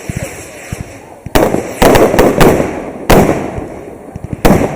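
Aerial firework shells bursting: a quiet first second, then about six sharp bangs in quick groups, each trailing off in a rumbling echo.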